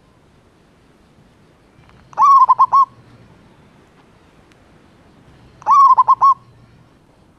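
Zebra dove (perkutut) calling twice, each call a quick run of about five short coos, the two calls about three and a half seconds apart.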